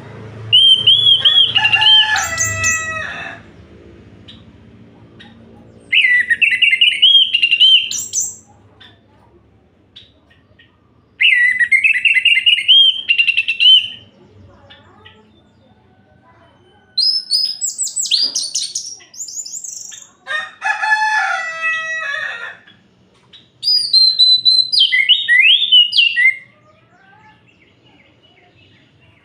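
Orange-headed thrush singing: six loud, varied whistled phrases of two to three seconds each, separated by short pauses.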